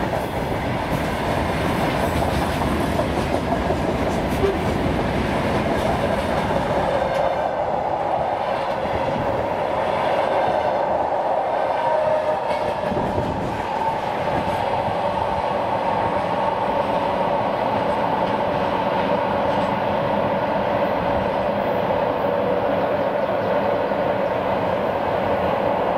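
Freight train of open gondola wagons rolling past, its steel wheels clattering over the rail joints in a steady stream of clickety-clack. From about halfway through, the sharper top of the sound falls away as the last wagons pass and the train draws off.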